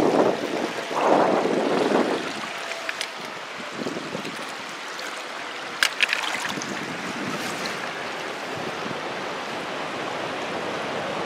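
Steady rush of flowing river water, with a few louder noisy surges in the first two seconds and a couple of sharp clicks about six seconds in.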